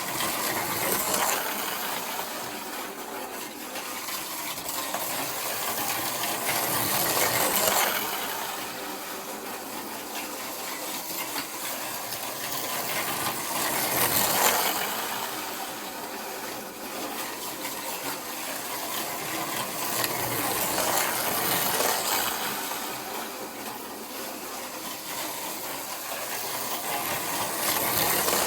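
Micro slot car running laps on a plastic track, its small electric motor and wheels making a rattling buzz. The buzz swells each time the car passes close by and fades as it goes round, about once every six and a half seconds.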